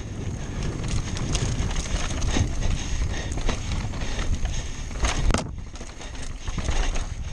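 Downhill mountain bike running fast over a rough dirt trail: tyres rumbling on the ground and the bike clattering with repeated knocks over rocks and roots. The loudest clatter comes about five seconds in, followed by a brief lull.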